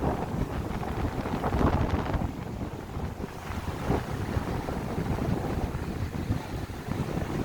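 Strong wind buffeting the microphone in a steady low rumble with gusts, over the wash of sea waves breaking on the shore.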